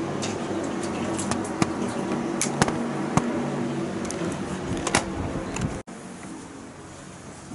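A steady machine hum in a small hard-walled room, with scattered sharp clicks and knocks over it. The hum cuts off sharply about six seconds in, leaving a quieter room tone.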